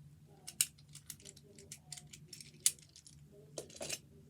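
Small plastic fidget toys being handled: a string of light clicks and rattles, with two sharper clicks, one about half a second in and one near the three-second mark.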